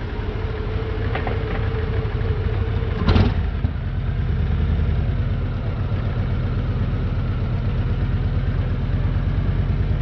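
Harley-Davidson Road Glide's V-twin engine running steadily at low revs as the bike rolls slowly, with a brief louder burst about three seconds in.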